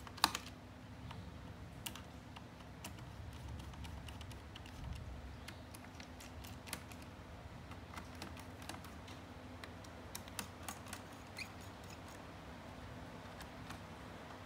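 Scattered small clicks and taps of a screwdriver working the captive screws of a laptop's CPU heatsink and fan, with one sharper click near the start.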